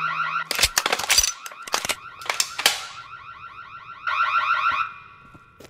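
Rapidly pulsing electronic security alarm going off after a liquid is detected at airport baggage screening. It drops back in the middle, swells again about four seconds in and fades out near the end. Over the first three seconds come a string of sharp clicks and knocks.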